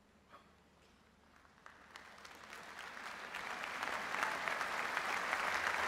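A large crowd's applause after a hush: scattered claps begin about a second and a half in and swell over a couple of seconds into dense, steady clapping.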